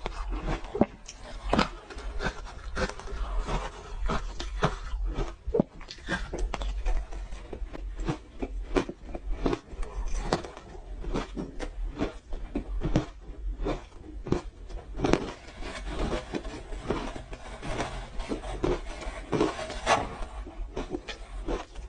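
Close-miked chewing and crunching of frozen orange ice, a fast, irregular run of sharp crunches and clicks over a steady low hum.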